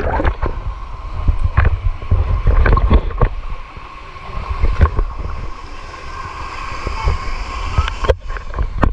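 Water rushing and splashing, with a heavy rumble buffeting the microphone and scattered knocks.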